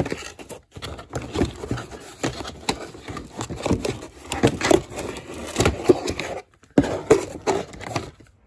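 Handling of a new GearWrench Auto Bite hand tool and its packaging: irregular rustling, clicks and light knocks, with a short pause about six and a half seconds in.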